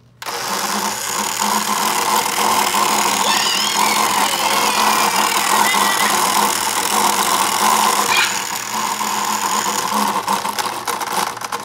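Steady electronic whirring, engine-like sound effect from a toy playset's small speaker, switched on abruptly and running for about ten seconds before fading out near the end.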